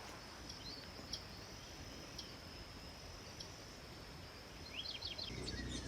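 Faint outdoor farm ambience: a steady high insect drone with a few faint clicks, then several short bird chirps near the end, joined by a low rumble.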